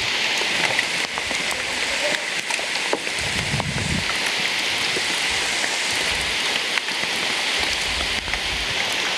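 Heavy rain pouring onto a river, a steady hiss with scattered ticks of drops striking close by. A brief low rumble sounds about three seconds in.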